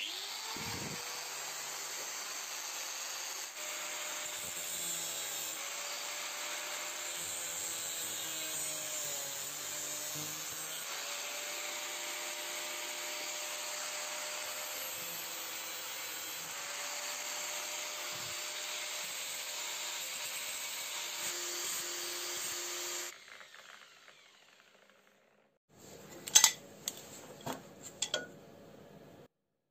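Bosch angle grinder spinning up and cutting into the metal arm of a scroll saw with a cutting disc, its motor pitch dipping and recovering under load, then stopping after about 23 seconds. Near the end, short sharp bursts and hiss of a compressed-air blow gun.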